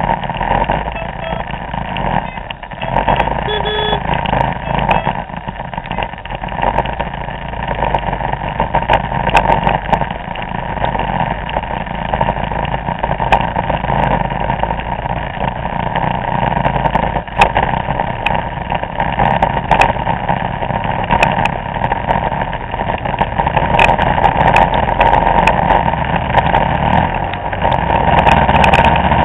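Vespa scooter engines running steadily while riding in a large group, heard as one continuous roar with wind and road noise over the microphone and a few faint clicks.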